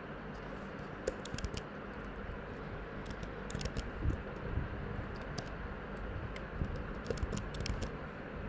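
Computer keyboard typing: irregular keystrokes in short clusters, over a steady low background hum.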